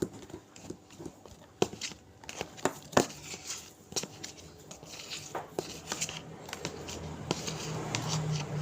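Irregular sticky clicks and crackles of slime being handled, one sharper click about three seconds in, with a low hum growing in the second half.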